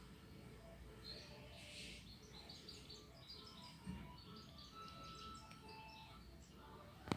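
Faint chirping of small birds over quiet room tone, with a soft bump about four seconds in and a sharp click near the end.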